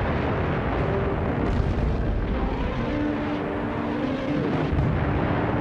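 Battle sound of artillery shellfire: a continuous heavy rumble of explosions, with a couple of sharper blasts about a second and a half and five seconds in.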